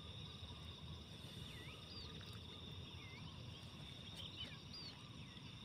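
Faint outdoor ambience: a steady high insect drone, with a few short swooping bird whistles over it and a low rumble underneath.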